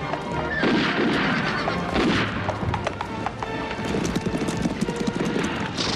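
A mass of cavalry horses galloping, a dense clatter of hooves, with horses neighing about a second and two seconds in.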